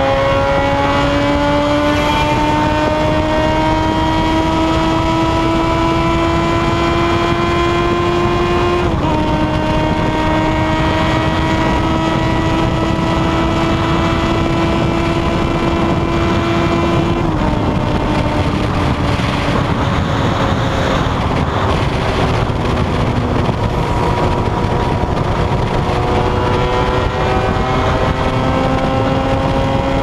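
Motorcycle engine heard from on board at highway speed, pulling hard with its note climbing steadily over rushing wind. The note dips briefly about nine seconds in, as at a gear change, and climbs again. Just past halfway it falls away as the throttle closes, leaving mostly wind, and it rises again near the end.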